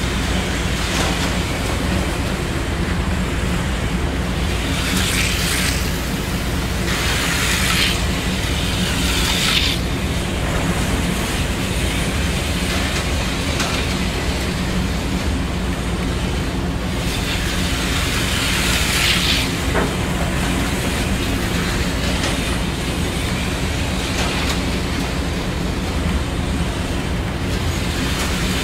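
Small electric motors of an HO-scale model train and Auto World 4 Gear slot cars running on the layout's track: a steady hum with wheels clicking over the rails, and the whir of a slot car swelling and fading as it passes, several times.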